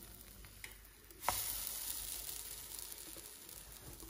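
Pancake batter sizzling in a hot nonstick pan cooked without oil, while the pancakes are flipped with a slotted metal spatula. About a second in there is a light tap as a pancake is turned, and the sizzle gets louder, then slowly fades.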